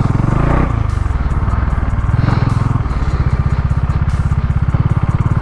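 Bajaj Dominar 400's single-cylinder engine running under way, a steady pulsing exhaust note.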